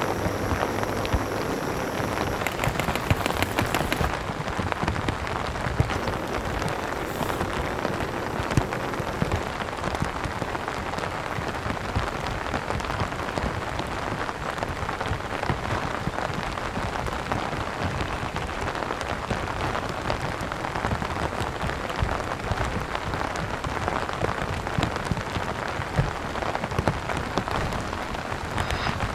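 Steady rain falling, with many separate drops ticking sharply against a steady hiss.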